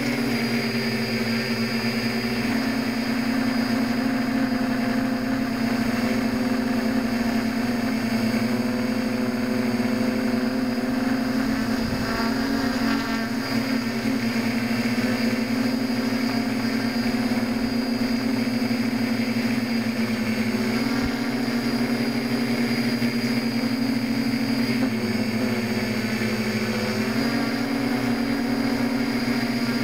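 A homemade tricopter's three electric motors and propellers running steadily in flight, heard close from the onboard camera. The drone holds a constant pitch, then steps up and down a few times in the second half as the throttle changes.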